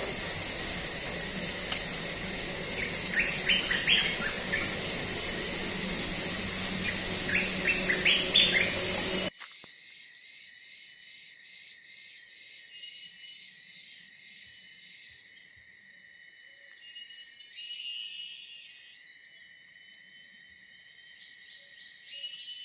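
Forest ambience: a steady high-pitched insect drone under a loud noisy background, with short bird chirps. About nine seconds in it cuts off abruptly to fainter, high insect sounds.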